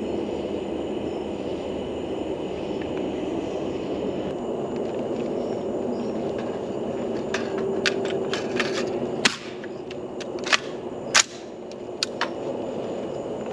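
A run of sharp clicks and clacks in the second half, a few loud ones among them, as an AR-15 rifle is handled. Under them runs a steady background hum.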